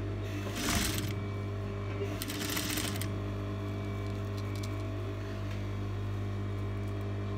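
Steady low electric hum of the sewing machine's motor running, with two brief rustles of fabric being pulled and smoothed under the presser foot in the first three seconds.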